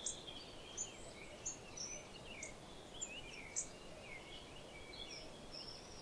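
Small songbirds chirping faintly all around: a steady scatter of short, high notes and quick rising and falling chirps from several birds.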